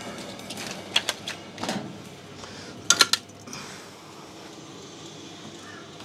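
Sharp clicks and knocks of hands and a screwdriver on a clothes dryer's top panel: a couple of clicks about a second in, a short knock, then a quick triple click about three seconds in.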